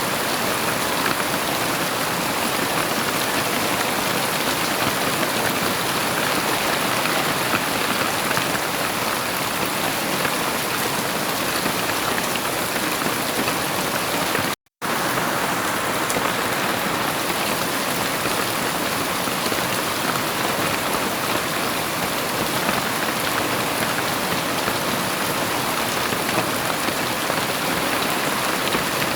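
Heavy rain falling steadily, a dense even hiss of drops with no thunder. About halfway through, the sound cuts out completely for a split second and comes straight back.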